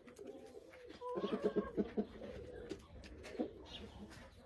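Chickens making a low, rapidly pulsed clucking call for about a second, starting about a second in, with fainter calls and soft pecking clicks around it.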